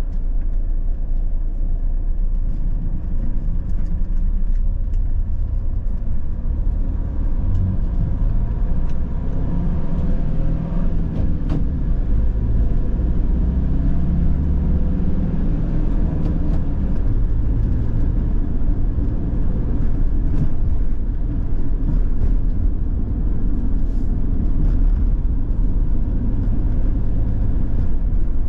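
Steady low rumble of a van on the move, with engine and tyre noise heard from inside the cab. Around the middle, a large oncoming lorry passes close by, and its engine swells and then fades.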